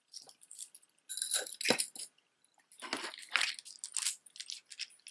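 Jewelry being handled on a cloth-covered table: a metal chain necklace and a strand of large beads clicking and rustling against each other in two bursts, with a soft knock about one and a half seconds in.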